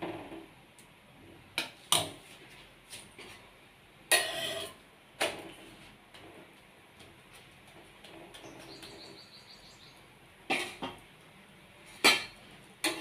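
Kitchen metalware clinking: a steel spatula and a stainless steel plate knocking against a tawa griddle. About half a dozen sharp, separate knocks, one followed by a short scrape about four seconds in.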